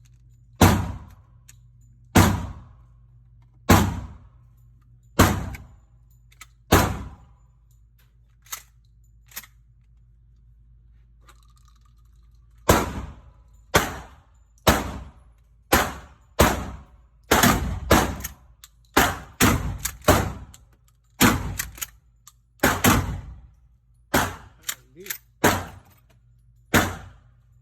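Gunshots at a shooting range, loud sharp reports each with a short ringing echo, among them a 12-gauge pump shotgun firing 00 buckshot. Five shots come evenly about a second and a half apart, then after a pause of a few seconds a faster, irregular volley of about twenty shots, some less than half a second apart.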